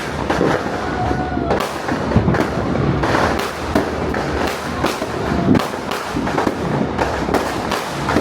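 Fireworks and firecrackers going off in quick succession, a dense run of bangs and crackles with no pause.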